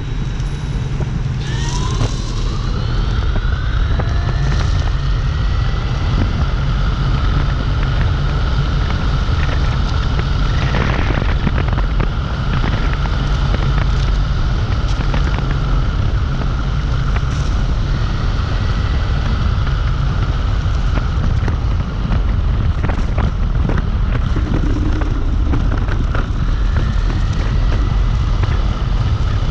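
Dualtron Compact electric scooter's hub motor whining under a heavy rumble of wind on the microphone. About two seconds in, the whine rises in pitch as the scooter speeds up, then holds steady.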